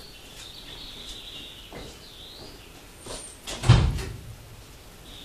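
A single loud, deep thump, like a door or panel shutting, about three and a half seconds in, with a smaller knock just before it. A faint steady high-pitched whine runs underneath.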